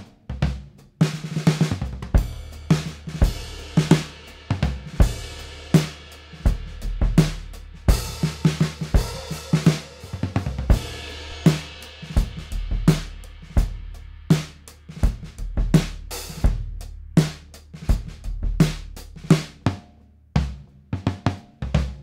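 Drum kit played in a steady groove: a Ludwig 402 snare with a prototype two-ply calfskin batter and mylar snare side, 0.3 mm calfskin toms damped with T-shirts, a goatskin bass drum with a felt strip, and cymbals. The cymbals ring more thickly from about eight to eleven seconds in.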